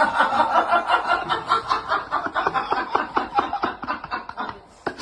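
Someone laughing in quick, rapid bursts, cutting off abruptly shortly before the end.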